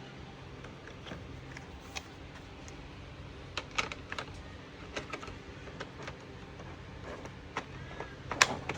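Plastic dashboard trim being fitted back into place by hand: a run of irregular sharp clicks and taps, the loudest a little before the end.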